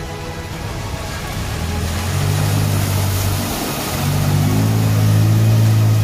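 SUV engine revving hard as the vehicle drives through a mud hole, with the wheels churning and splashing through water and mud. The engine note swells about two seconds in, drops briefly, then climbs again louder.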